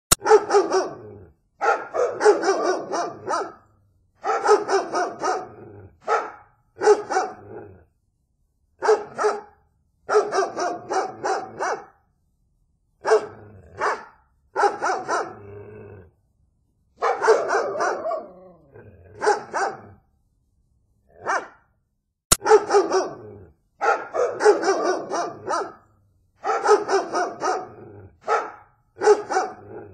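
Dogs barking in repeated bouts of several barks, each bout a second or two long, with short dead-silent gaps between them.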